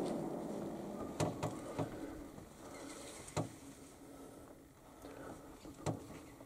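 The fading report of a rifle shot dying away through the forest, followed by a few sharp clicks and knocks.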